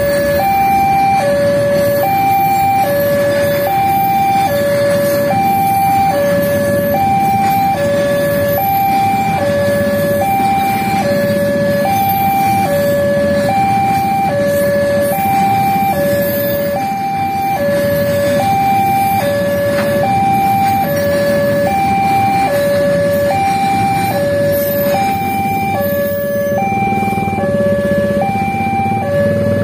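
Railway level-crossing warning alarm sounding a steady electronic two-tone hi-lo, alternating about once a second, warning that a train is crossing. Underneath it, a container freight train rolls past on the rails.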